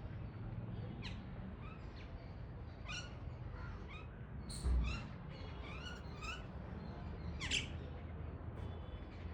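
Several birds calling from the trees: a run of short, repeated chirping calls with a few sharp falling screeches among them. A dull thump about halfway through, over a low rumble.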